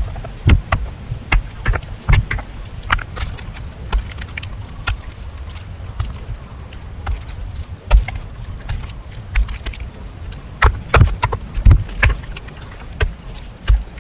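Irregular knocks and thumps of hand work, some sharp and some dull, over a steady high-pitched insect drone that sets in about a second in.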